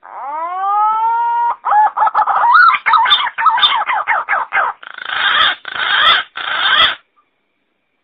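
Green pigeon (punai) call played as a hunting lure: a rising whistle, then a run of quick warbling whistled notes, ending in three harsh grating notes about seven seconds in.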